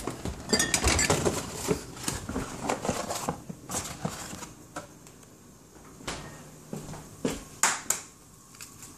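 Scattered clicks, knocks and handling noises, with one sharper knock near the end, from kitchen items and a phone camera being moved about.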